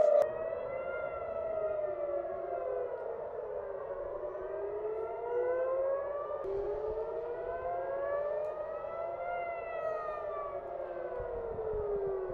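Civil-defense air-raid sirens wailing, several at once out of step, each slowly rising and falling in pitch: a rocket-attack warning.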